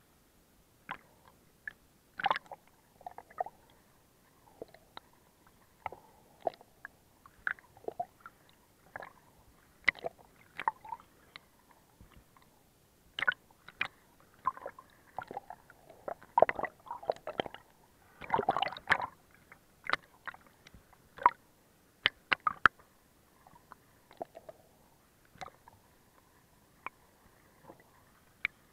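Water sloshing and slapping against the camera at the sea surface: irregular short splashes and clicks, busiest and loudest about two-thirds of the way through.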